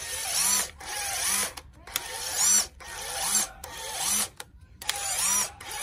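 Old cordless screwdriver's motor triggered in about seven short bursts, each spinning up and stopping within a second, run this way to show that the forward/reverse switch works.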